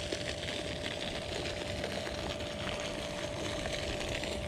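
Spinning fishing reel being cranked steadily to retrieve the line, a light mechanical whir over a steady background hiss.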